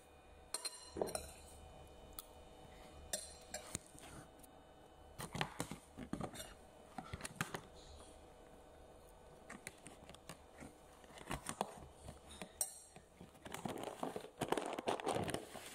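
Metal fork and spoon clinking and scraping on a ceramic plate while eating, as scattered sharp clicks, with a denser cluster near the end.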